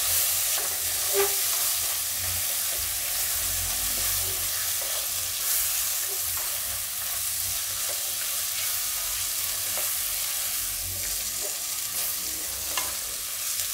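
Chopped tomatoes and onion-spice masala sizzling in hot oil in a wok, stirred with a silicone spatula: a steady sizzle with occasional light scrapes and taps of the spatula against the pan.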